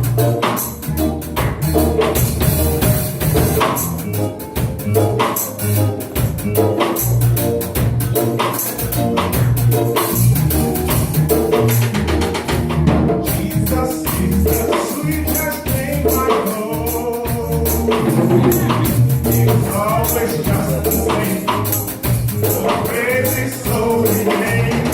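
Upbeat worship music with a driving beat, tambourine and drums, joined by singing voices about halfway through.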